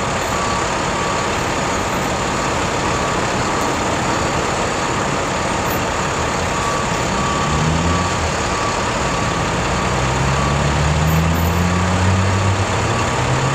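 Heavy truck engine running with a backup alarm beeping steadily. About seven seconds in the engine revs up, and it holds at a higher speed near the end.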